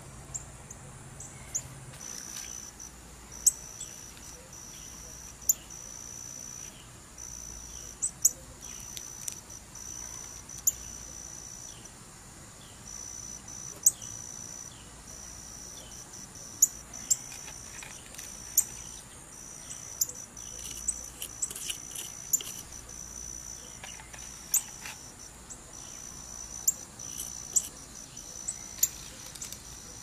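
High-pitched insect trilling, cricket-like, in long runs with short breaks. Over it come sharp clicks and taps, several of them louder than the trilling, as hardened hypertufa pieces and their mold are handled and pulled apart.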